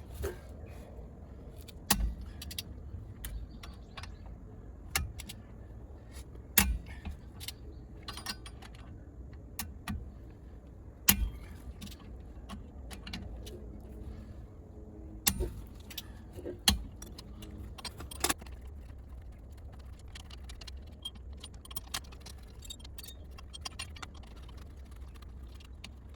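Irregular metallic clinks and clanks of hand tools and parts being handled during work on a car's rear hub. The sharpest knocks come every few seconds over a steady low rumble.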